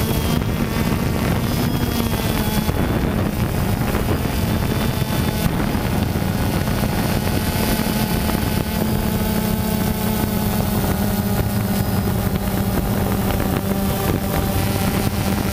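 DJI Phantom 2 quadcopter's electric motors and propellers buzzing steadily, heard from the camera mounted on the drone, with the pitch wavering slightly as it descends low over the ground.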